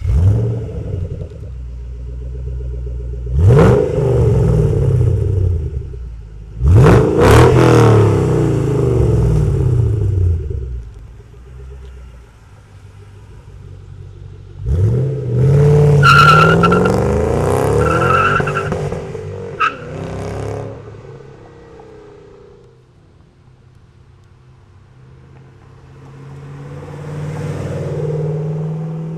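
2011-12 Ford Mustang Shelby GT500's supercharged 5.4-litre V8 through an MRT Sport Touring axle-back exhaust and Street Race H-pipe, idling and revved. There is a sharp rev about three seconds in, two quick blips around seven seconds, and a longer rev held around fifteen to twenty seconds, each falling back to a rumbling idle. The note swells again near the end.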